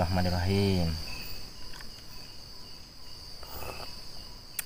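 Crickets and other night insects chirring steadily: a high, even trill with shorter repeated chirps beneath it. A short sharp click comes near the end.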